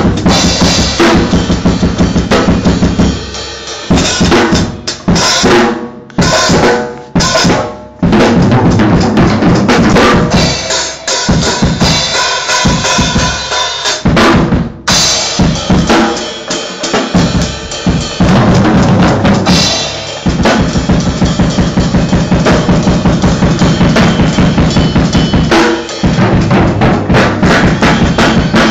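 Drum kit played loud and fast, a dense stream of drum and cymbal strokes, broken by short stops in the first half and once more near the end.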